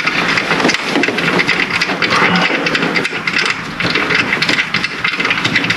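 A 15 mm wrench working the bolt of a ribbed-belt (serpentine) tensioner: a dense, irregular run of metallic clicks and scraping.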